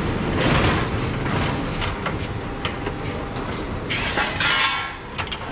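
Rattling and clanking of heavy metal equipment being handled and moved, with many small knocks. Two louder rushing stretches come about half a second in and again about four seconds in.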